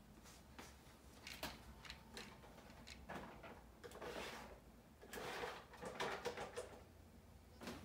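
Faint handling noises: scattered light clicks and knocks, with two longer stretches of scuffing and rustling, about three and about five seconds in.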